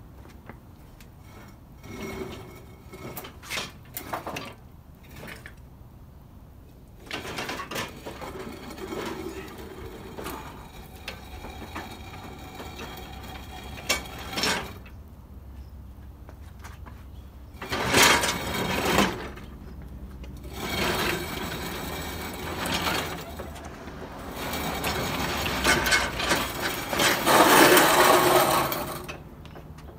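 Cut-off section of a VW Beetle's steel floor pan being dragged and scraped across a concrete driveway, with clanks of loose metal, in uneven spells that grow loudest near the end.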